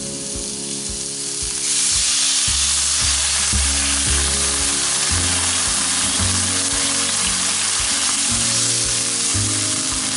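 A glass of water poured into a hot pan of sliced fennel frying in oil: the gentle frying hiss jumps about two seconds in to a loud, steady sizzle as the water hits the hot oil and comes to a boil.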